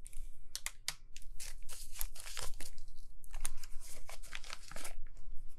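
Paper banknotes rustling and a clear plastic binder envelope crinkling as bills are handled and slid into it, in a run of short crackles.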